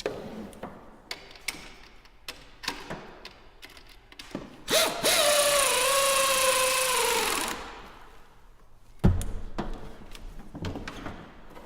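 A cordless power tool's motor runs for about three seconds, its whine dropping slightly in pitch as it goes. Small metallic clicks and rattles of tools and parts come before and after it, with one sharp thump about nine seconds in.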